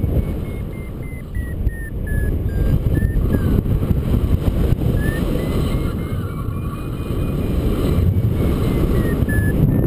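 Wind rushing over the microphone of a paraglider in flight, with a flight variometer beeping in short pulses. The beeps rise in pitch, then fall, stop for a moment in the middle, then rise and fall again, tracking the changing climb rate in the air.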